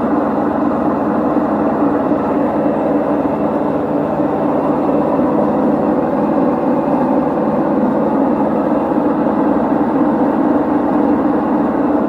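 LG direct-drive washing machine running, a loud, steady mechanical rumble and whir.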